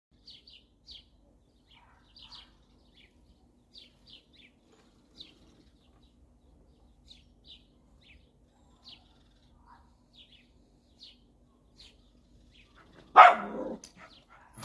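A small bird gives short, high chirps in small clusters, every second or so. Near the end, a dog barks loudly once.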